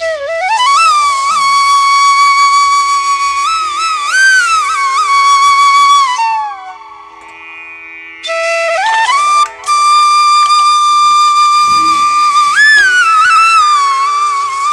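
Background music: a solo flute melody of long held notes with bends, over a faint steady drone. It plays in two phrases, with a quieter gap around six to eight seconds in.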